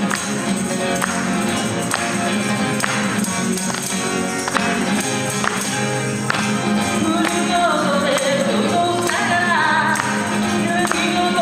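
Live acoustic band: a strummed acoustic guitar and a handheld percussion instrument keeping a steady beat, with male singing that comes through most strongly in the second half.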